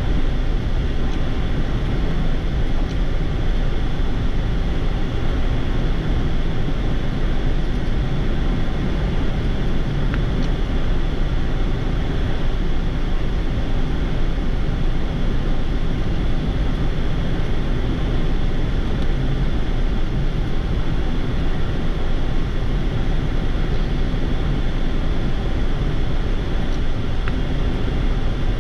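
Steady rushing flight-deck noise inside a Boeing 787-8 in flight on approach, heaviest in the low end, with no sudden sounds.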